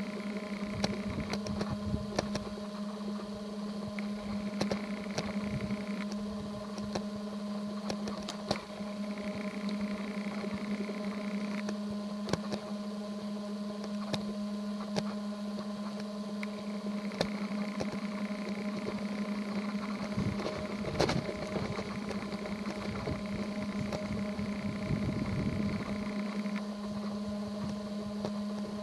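A steady low hum held at one pitch, like a running motor, with faint clicks and ticks scattered through it.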